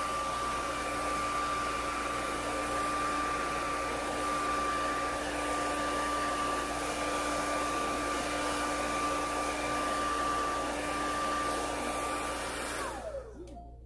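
Handheld hair dryer blowing hair dry: a steady rush of air with a whine over it, switched off near the end, its pitch falling as the motor spins down.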